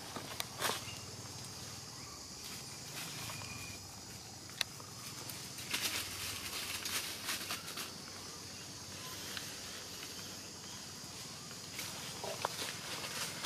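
Scattered rustling and crackling of dry leaf litter and undergrowth as something moves through it, with a sharp click a little over four seconds in, over a steady high hiss of forest ambience.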